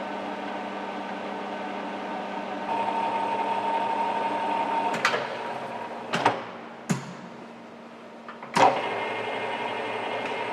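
Takisawa TSL-550 geared-head engine lathe running steadily, the headstock gearing giving a steady hum of many tones. Midway come several sharp clunks and the running drops lower, then a loud clunk near the end and the machine runs steadily again with a different hum.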